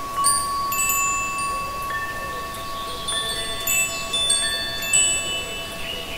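Wind chimes ringing, with many notes struck at irregular moments, each sustaining and overlapping the others. Beneath them runs a steady, held pure tone from the overlaid solfeggio frequencies.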